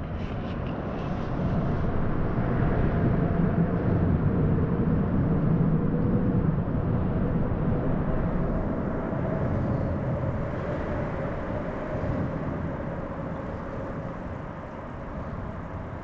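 A low engine rumble that swells over the first few seconds and then slowly fades, with a faint tone drifting down in pitch.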